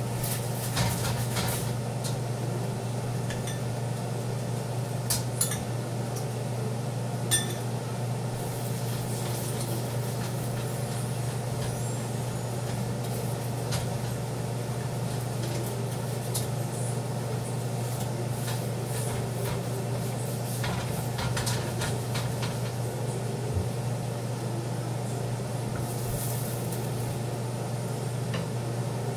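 Metal spatula clinking and scraping against a wok, in scattered short strokes, most of them in the first eight seconds, over a steady low hum.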